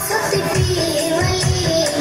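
Song playing loud, with a steady beat and a singing voice carrying the melody.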